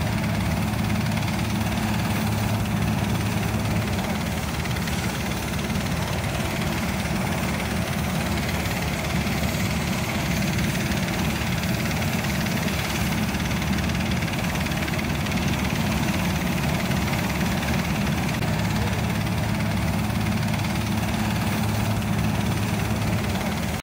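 Engine-driven inflator fan running steadily at the mouth of a hot air balloon, blowing cold air into the envelope during inflation.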